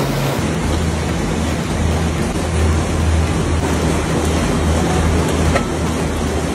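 Matchstick factory machinery running: a steady low hum with an uneven pulse under a constant mechanical rumble. One sharp click comes about five and a half seconds in.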